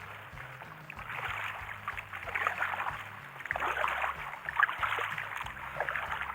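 Kayak paddling: water splashing and trickling off the paddle, in surges about once a second.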